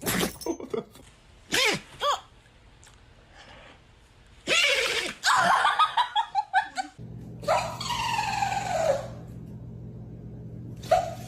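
Dogs sneezing: sharp, sudden sneezes, the loudest right at the start and about four and a half seconds in, among people's shrieks, exclamations and laughter, with two drawn-out falling cries in the second half.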